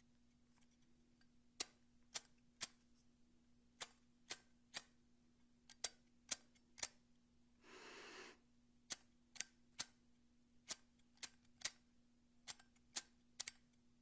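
Zippo Classic Street Chrome windproof lighter's hinged lid flipped open and snapped shut again and again: a string of sharp metal clicks and clunks, with a short rasping noise about eight seconds in.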